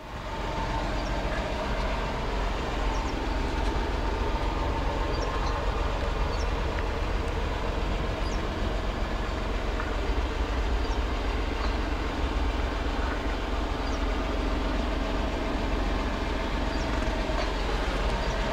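Suzuki Carry kei truck's small three-cylinder engine idling steadily, heard from inside the cab as an even low rumble.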